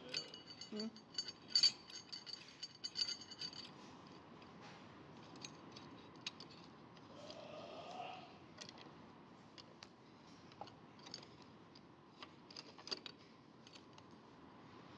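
Steel parts clinking and ringing as a bolt is fitted through the hanging hole of a rusty old adjustable wrench: a quick run of clinks in the first few seconds, then scattered light clicks.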